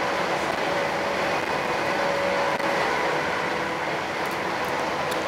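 Running noise heard inside a class 319 electric multiple unit travelling at speed: a steady rumble and rush of wheels on rail, with a faint steady whine over it.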